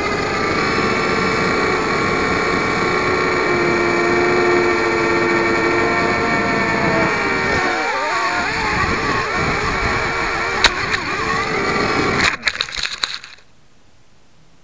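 WLtoys V252 mini quadcopter's four small electric motors and propellers whining steadily, heard from its onboard 808 keychain camera, the pitch shifting as the throttle changes. About twelve seconds in it hits the grass with a quick clatter of knocks and the motors cut out.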